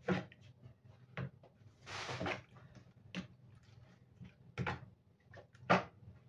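A spoon stirring chicken livers in marinade in a plastic bowl: about five sharp knocks of the spoon against the bowl, with a longer swishing stir about two seconds in.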